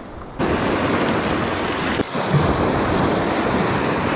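Surf breaking and washing around shoreline rocks: a loud, steady rush of water that comes in abruptly about half a second in.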